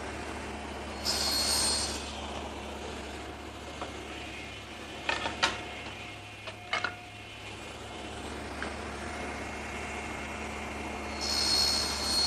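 Table saw running steadily on an ordinary blade, twice cutting into a wooden frame piece to make shoulder cuts: about a second in and again near the end, a brighter, louder ringing rasp as the blade passes through the wood. A few sharp knocks come in between.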